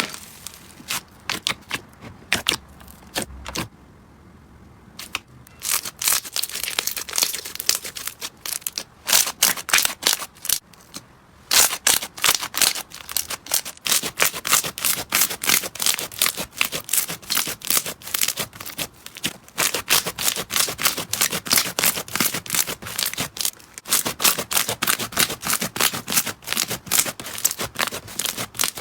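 Slime being squeezed and worked by hand, giving rapid sticky clicks and pops, several a second, with a short lull about four seconds in.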